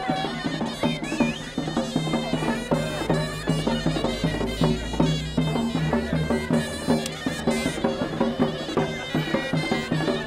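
Traditional music on loud, buzzing reed pipes, one low held tone under a melody, with a quick steady drum beat.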